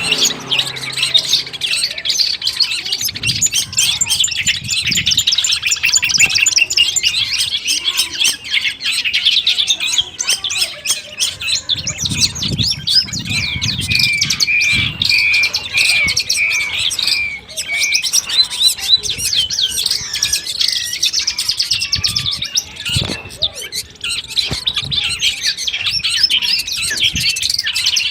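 Long-tailed shrike (cendet) song: a fast, unbroken chatter of varied chirps and trills. About halfway through comes a row of about eight even, lower whistled notes. Dull low thumps sound underneath at times.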